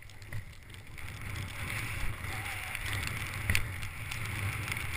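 Skis hissing through deep powder snow, with wind rumbling on the microphone and a few short clicks; the hiss grows slightly louder over the few seconds.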